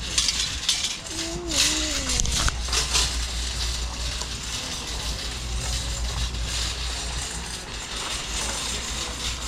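Irregular clicks and rustles of items being handled, densest in the first three seconds, over a steady low rumble. A short wavering voice-like sound comes about two seconds in.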